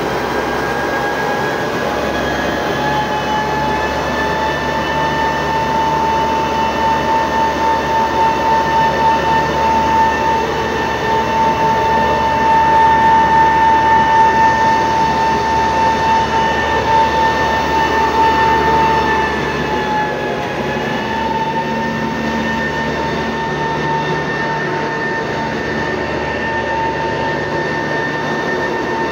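Electric-driven blower of a NEUERO GSD 280/270 pneumatic grain conveyor running with a steady high whine, its pitch creeping up over the first few seconds. About twenty seconds in, the whine drops briefly in pitch and the sound gets a little quieter, then it settles and runs on steadily.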